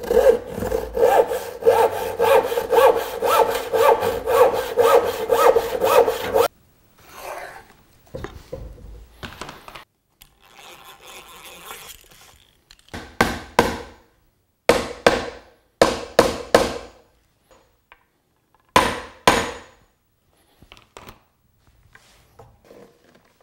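A hand panel saw crosscutting a wooden board, with steady back-and-forth strokes about three a second that stop abruptly about six seconds in. After that come scattered, separate wooden strokes and scrapes of hand work on the boards.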